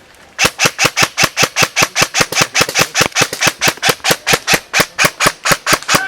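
Airsoft electric rifle firing a long, steady string of rapid shots close by, about five a second, starting about half a second in: suppressive fire.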